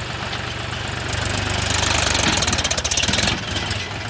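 Mahindra 275 DI XP Plus tractor's three-cylinder diesel engine chugging with a steady knock as it takes up the load of a heavily laden trolley. It gets louder and harder about a second in, then eases back near the end.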